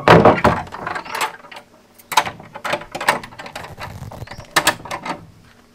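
Brass ring handle and latch on a carved wooden door worked by hand: a string of metal clicks and rattles, loudest at the start.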